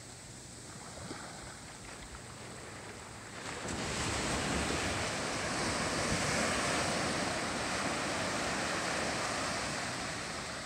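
Ocean surf: small waves washing onto a beach, swelling louder about three and a half seconds in as a wave breaks.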